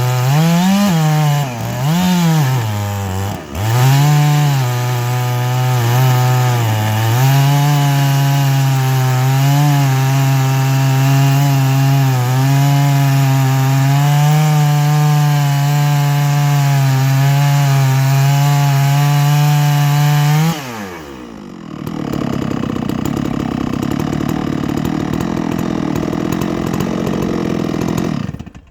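Stihl 660 chainsaw in a chainsaw mill, revved up and down a few times, then running steadily under full load as it cuts a slab from a black oak log on a freshly touched-up chain. About twenty seconds in the engine note drops suddenly. A steady rushing noise follows and stops just before the end.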